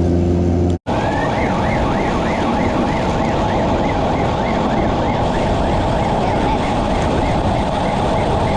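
A vehicle siren wailing in quick rise-and-fall cycles, about two to three a second, over a loud rushing noise. It starts just after a steady engine hum cuts off under a second in.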